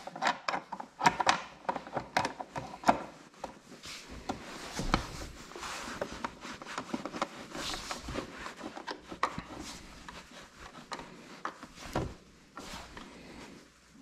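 A screw being driven by hand into the plastic side cap of a MotorGuide trolling motor head: irregular clicks and taps of the tool and plastic, a stretch of rubbing and scraping in the middle, and a sharp knock near the end.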